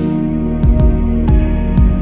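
Instrumental background music with sustained tones and a regular beat.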